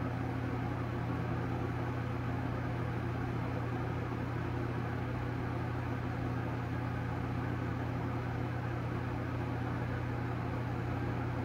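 A steady low hum with a faint even hiss over it, holding at one level without change.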